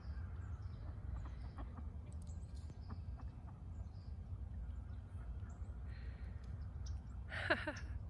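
Geese and ducks on a pond calling: faint scattered calls, then one louder call near the end, over a steady low rumble.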